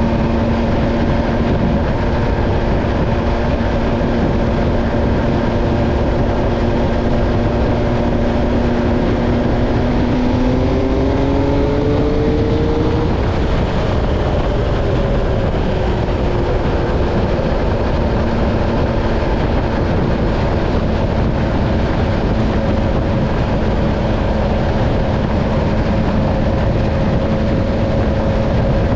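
MV Agusta Stradale 800's 798 cc inline three-cylinder engine under way, with a steady engine note over heavy wind rush. About ten seconds in, the revs rise for a few seconds, then drop and fall away before settling back to a steady note.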